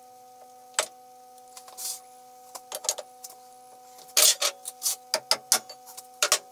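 Metal-on-metal clinks as a four-jaw chuck is seated on a lathe's L00 spindle nose, then from about four seconds in a quick run of sharp clanks as a hook spanner tightens the spindle-nose locking ring. A faint steady hum sits underneath.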